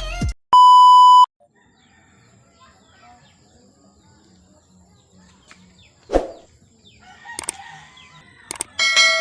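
A loud, steady electronic beep tone lasting under a second, followed by a faint quiet background with a sharp knock about six seconds in, and a bright ringing chime near the end.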